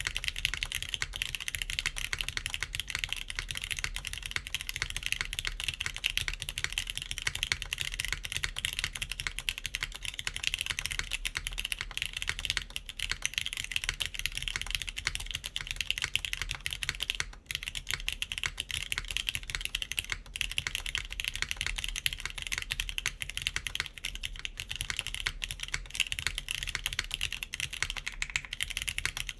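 Steady fast typing on a KBDfans Tofu60 3.0 mechanical keyboard in top-mount configuration, with a PEI plate, TypePlus NK Classic Blue switches and GMK keycaps: a dense run of key clacks with a brief pause a little past halfway.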